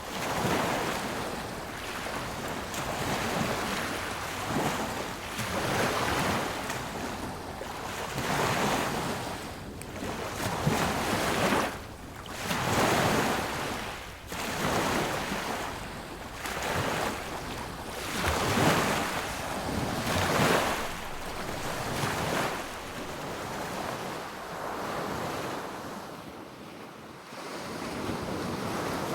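Sea waves breaking on a beach, each surge of surf swelling and falling away every few seconds, with wind buffeting the microphone.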